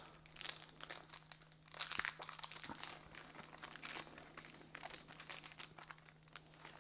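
Plastic-foil trading card pack wrapper being torn open and crinkled by hand: a run of irregular crackling and rustling that thins out near the end, over a faint steady hum.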